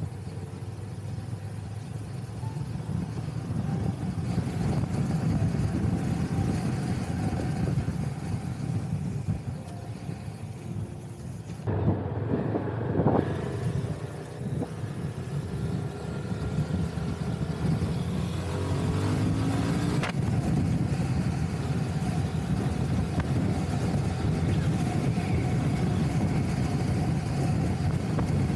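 Steady engine and road noise from a moving vehicle, heard from on board, with a louder stretch about twelve seconds in and the engine note rising briefly about two-thirds of the way through.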